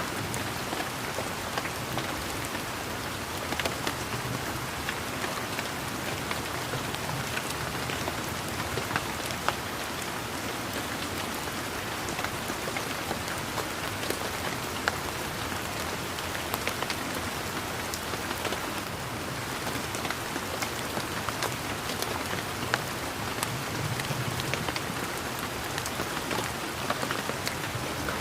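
Steady rain falling on garden foliage, a continuous patter with many individual drop ticks scattered throughout.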